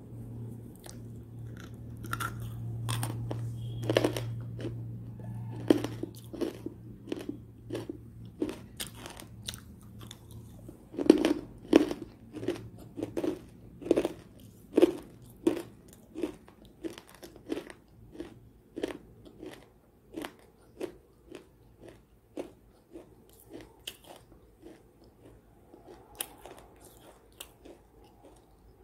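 Close-miked crunching and chewing of a crunchy homemade cookie made of edible white chalk (khadi) paste. The crunches come in a regular run of about one and a half to two a second, loudest around the middle and growing fainter toward the end.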